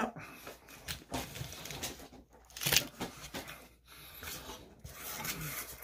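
Scattered short rustles and taps from a paper burger wrapper being handled, the loudest rustle a little under three seconds in.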